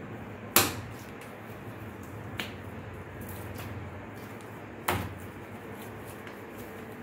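Hands portioning soft dough into balls: two sharp slaps about four seconds apart, with a fainter one between them.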